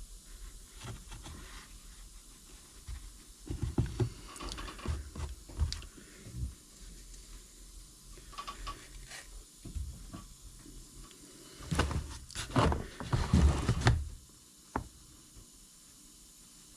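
Irregular rubbing, scraping and handling noises from hand work on a cracked plastic part, with a few sharp clicks. The noise comes in bursts, loudest about four seconds in and again from about twelve to fourteen seconds in.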